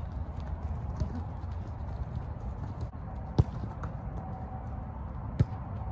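A soccer ball kicked twice, two sharp thuds about two seconds apart, over the patter of players' running footsteps on grass and a steady low rumble.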